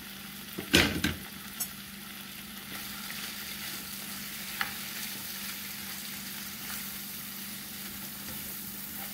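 Beef strips, onion, chopped tomato and green chile sizzling in a frying pan, with a spatula stirring and scraping through them from about three seconds in. A loud knock about a second in.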